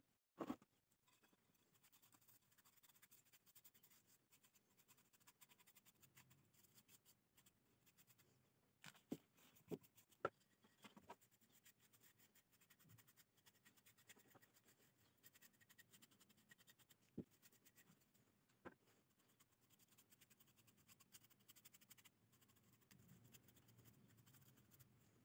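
Faint scratching of a bristle paintbrush stroking finish onto small pallet-wood pieces, with a few light knocks as the wooden pieces are handled and set down.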